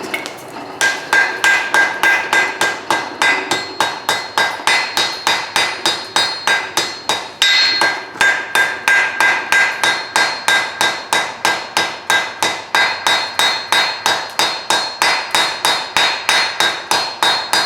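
Hammer blows on hot steel over an anvil in a steady run of about three to four strikes a second, the anvil ringing between blows, with a short break near the middle. The steel is being drawn into a taper at forge-welding heat at the welded end of an angle iron and bar stock twist.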